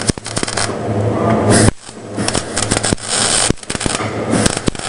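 Electric arc welding: the arc crackles and sputters densely over a low hum. It cuts out for a moment just under two seconds in, then strikes again.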